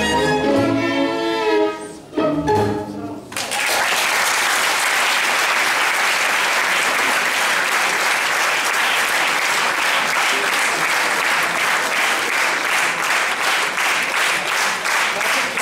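A string chamber orchestra of violins, cellos and double bass plays the closing bars of a piece and ends on a short final chord. About three and a half seconds in, the audience breaks into steady applause.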